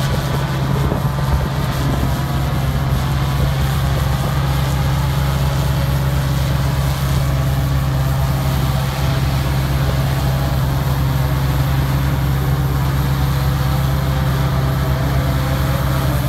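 Steady low mechanical hum of running machinery, unchanging throughout, with a hiss above it.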